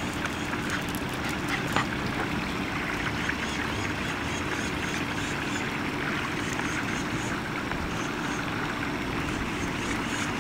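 Steady background hum and hiss, with a few faint clicks near the start.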